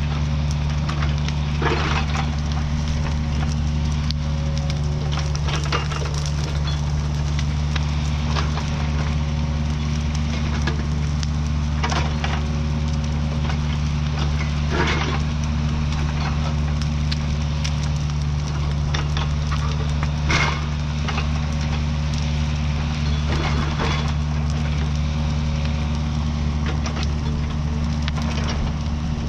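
Mini excavator's diesel engine running at a steady pitch, with a dozen or so sharp cracks and snaps of wood scattered over it, the loudest about two-thirds of the way through.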